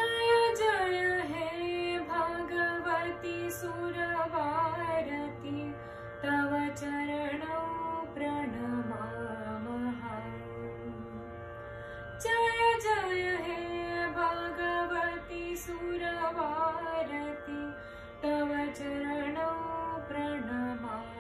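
A girl singing a slow devotional melody over a steady drone. There are two long phrases, each starting high and gliding down step by step; the second begins about twelve seconds in.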